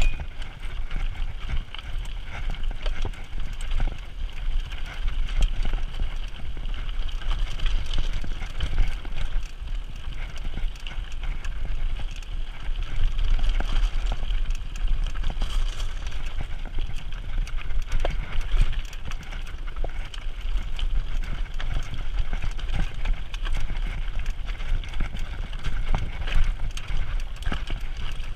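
Mountain bike rolling over a loose, rocky trail: tyres crunching on stones and gravel, with the bike rattling and clicking over bumps throughout. Wind buffets the microphone with a steady low rumble.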